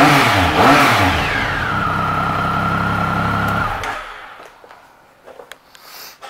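2011 Triumph Speed Triple's 1050 cc three-cylinder engine blipped twice with the throttle, falling back to a steady idle, then switched off a little under four seconds in. A few light clicks follow.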